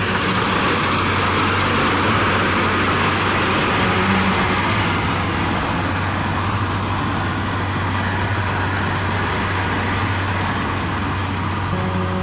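Kubota DC70 rice combine harvester's diesel engine and machinery running steadily under load while harvesting rice, a constant low hum with a steady whir above it.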